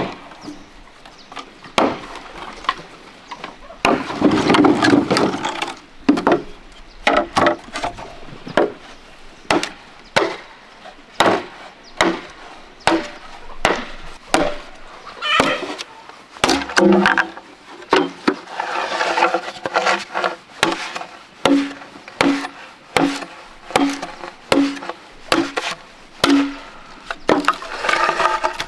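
Wood being chopped with repeated strokes, about one a second, some strokes leaving a short low ring.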